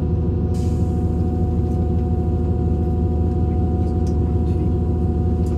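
Steady drone of a diesel regional train under way, heard from inside the passenger car: a low engine and running hum with a constant higher whine over it and a few faint clicks and rattles.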